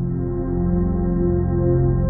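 Ambient background music of low, sustained held notes that change slowly.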